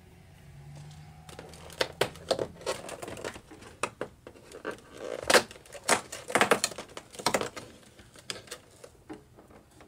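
Perforated cardboard door of a LEGO Advent calendar being pressed in and torn open by hand: a run of irregular crackles, snaps and tearing sounds, loudest in the middle and tailing off near the end.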